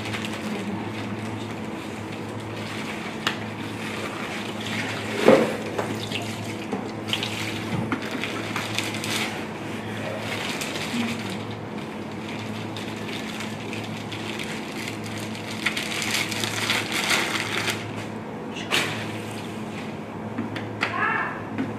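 Liquid poured from plastic bottles over food in a plastic crate, with handling noises and a sharp knock about five seconds in. A low steady hum runs underneath.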